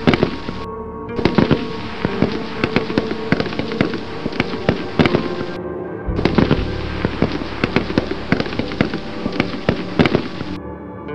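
Battle gunfire: many overlapping shots in rapid succession, over steady background music. The shooting drops out briefly about a second in and again about halfway, then stops near the end, leaving only the music.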